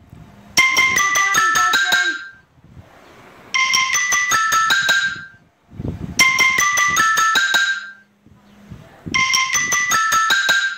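A phone ringtone: a short marimba-like tune of struck notes, each ring about a second and a half long, repeating four times about every three seconds.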